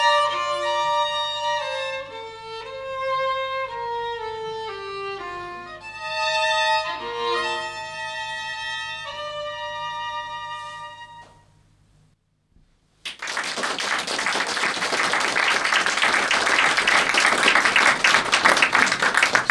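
A violin-led chamber piece on bowed strings plays a melodic passage and ends on a held note about eleven seconds in. After a short silence the audience bursts into sustained applause, which is louder than the music.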